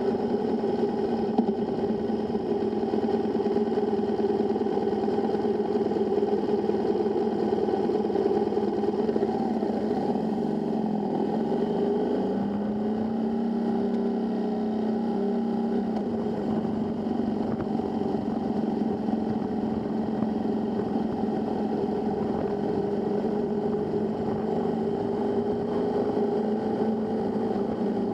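Motorcycle engine running steadily at road speed, with a haze of road and wind noise. About eleven seconds in, the engine note dips and then settles at a slightly lower, steadier pitch.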